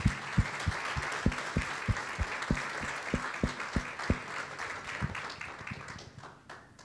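Audience applauding, with a run of low thumps about three a second underneath. The applause dies away near the end.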